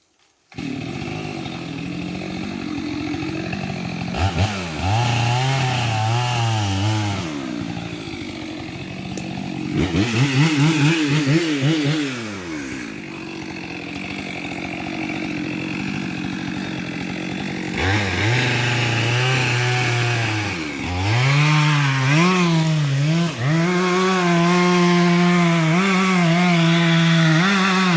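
Gas chainsaw making the felling back cut through a large tree trunk, starting suddenly about half a second in. Its pitch repeatedly sags as the bar bogs down in the wood under load, then climbs again as the saw recovers.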